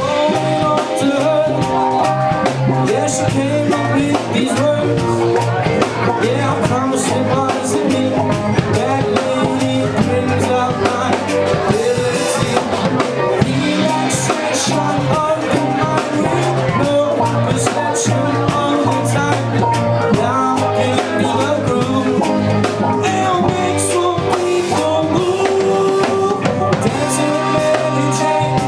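Live rock band playing with drum kit and electric guitar, a steady full-band groove.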